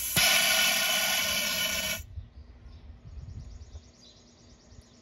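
Compressed air hissing through a venturi coolant vacuum tool as it pulls a vacuum on the engine's cooling system. A click just in, then the hiss grows louder and cuts off suddenly about two seconds in.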